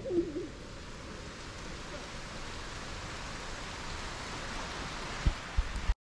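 Steady hiss of heavy rain, swelling slightly, with a short wavering tone right at the start and two dull thuds near the end.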